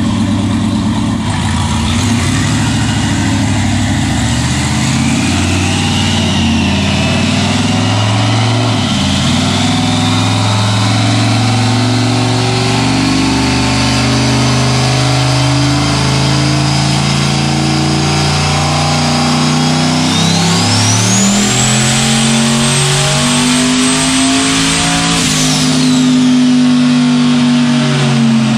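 Turbocharged Corvette V8 running a slow wide-open-throttle pull on a chassis dyno. The engine note climbs steadily in pitch under a rising turbo whine. About twenty seconds in the whine jumps sharply higher as the turbo comes on boost, held at a turned-down setting of about 14 psi. It falls away near the end as the throttle is let off and the turbo spools down.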